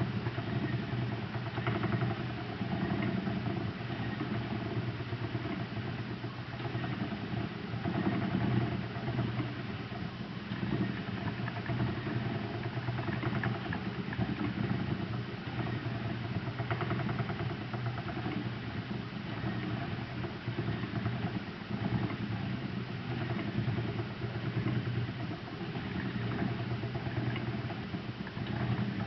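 Lendrum spinning wheel running under steady treadling, with an odd clicking noise over the whir of the wheel. The clicking is a fault that oiling, changing fliers and tightening the fasteners have not cured; active singles running through the orifice make it more prominent.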